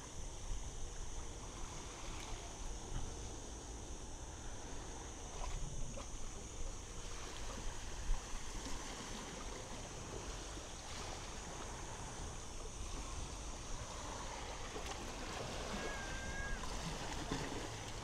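Small waves washing onto a sandy beach, with wind rumbling on the microphone.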